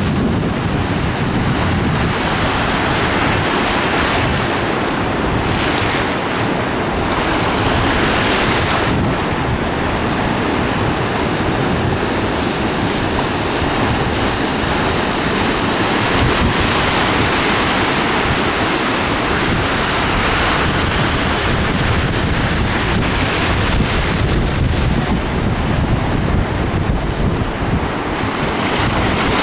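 Ocean surf breaking and washing up on the beach, a steady rushing noise, with wind buffeting the microphone.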